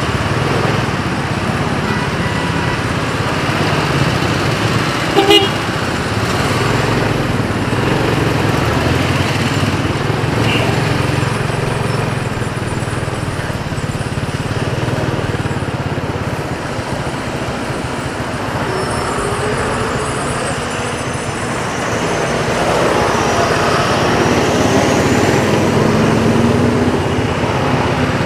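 Motorcycle engine running steadily amid city traffic, with a short vehicle horn toot about five seconds in.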